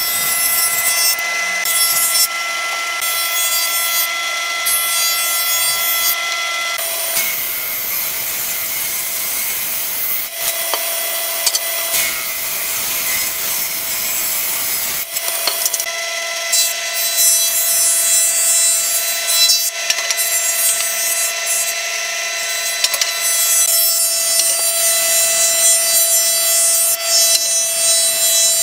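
Hitachi jointer-planer running, its cutterhead planing a wooden board with a steady high whine over the hiss of cutting; the whine shifts in tone a couple of times as the board passes.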